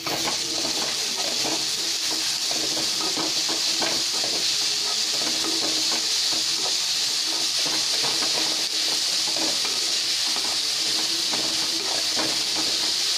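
Shredded vegetables sizzling in hot oil in a metal kadai, a steady hiss, with repeated scrapes of a wooden spatula stirring them.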